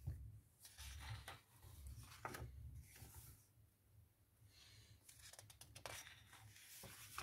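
Near silence with faint paper rustling and a few soft taps as hands turn the stiff pages of a hardcover picture book.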